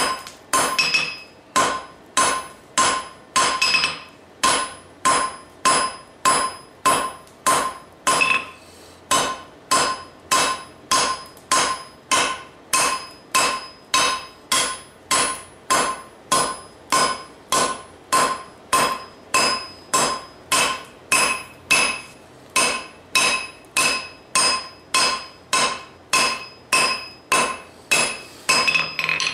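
Hand hammer forging red-hot rebar on a steel anvil: a steady run of blows at about two a second, each ringing with the same clear metallic tones, ending abruptly.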